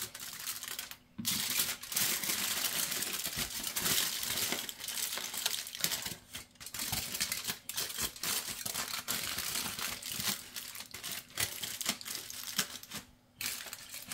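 Thin aluminium kitchen foil crinkling and crackling as it is folded and crimped by hand around a fish, with a few brief pauses.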